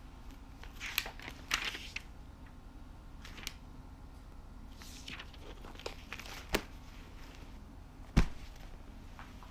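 Pages of a spiral-bound textbook being turned, paper rustling and swishing several times, then one dull thump near the end as the book is put aside.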